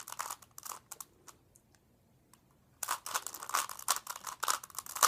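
A 3x3 Rubik's Cube being turned by hand: plastic layers clacking in quick runs of turns. There is a pause of about a second and a half in the middle, then a fast, dense run of turns.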